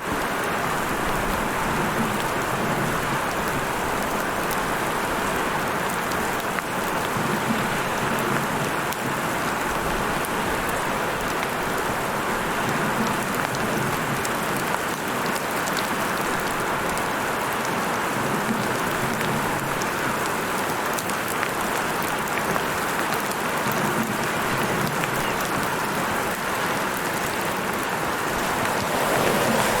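Heavy rain falling steadily, a dense even hiss of drops with scattered fine patters on top.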